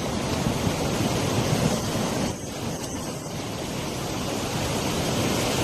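Floodwater rushing, a steady even noise that drops a little in level and changes character about two seconds in.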